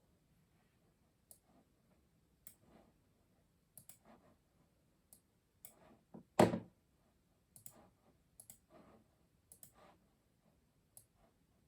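Custom mechanical keyboard keys pressed in slow, irregular keystrokes, about one or two clicks a second, with one much louder knock about six and a half seconds in.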